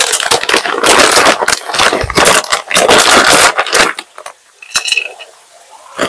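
Kitchen scraping and rubbing against dishes or utensils, loud and irregular for about four seconds, then a few clicks and a short ringing clink near the end.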